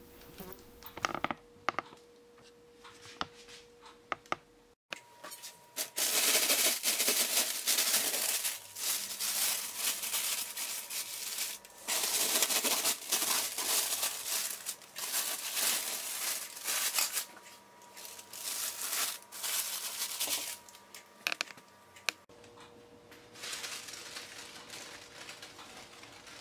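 Plastic oven bag crinkling and rustling in rapid irregular bursts as it is opened and pulled away from freshly baked loaves. It starts with a few light clicks and becomes loud and continuous from about five seconds in until near the end.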